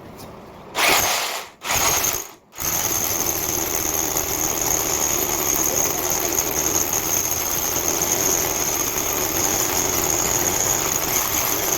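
Electric drill with a concrete hole saw boring into a masonry wall. It is triggered in two short bursts, then runs steadily with a high whine as the bit cuts.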